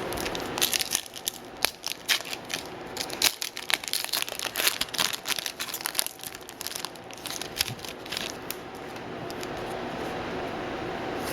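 Plastic wrapper of a hockey card pack being torn open and crinkled in the hands, a dense run of crackles that dies away about eight seconds in.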